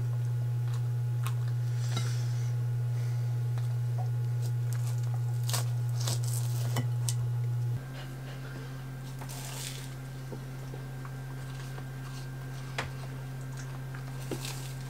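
A steady low hum that drops in level and changes pitch character about eight seconds in, with scattered light clicks of cutlery on plates during a meal.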